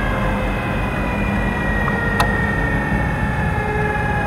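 Motorcycle engine idling steadily close by, a low rumble with a thin high whine over it, while cars roll slowly past. A single sharp click about two seconds in.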